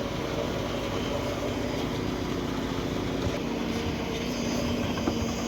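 Heavy machinery engine running steadily on a concrete pour, a constant droning hum with a few faint clicks over it.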